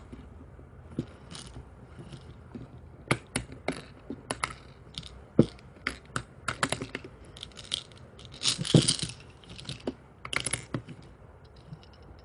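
Irregular plastic clicks and clatters from handling a toy candy vending machine, its dial being turned and candy dropping, with a short burst of rattling a little before the end.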